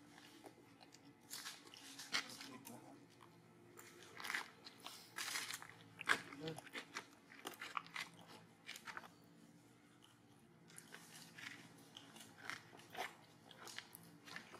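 Long-tailed macaques biting and chewing crunchy green fruit: a run of irregular crisp crunches and bites, the loudest about six seconds in.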